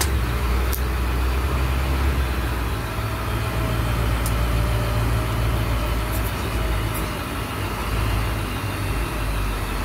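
Engine of a monster-truck passenger bus running steadily at low speed, a deep even hum, with a few faint clicks.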